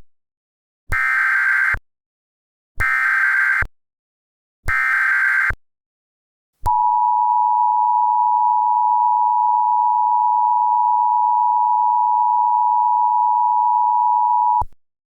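Emergency Alert System tones: three short, identical buzzy bursts of SAME digital header data, the encoded alert code, each about a second long. Then comes a steady two-tone attention signal (853 and 960 Hz) that holds for about eight seconds and cuts off sharply.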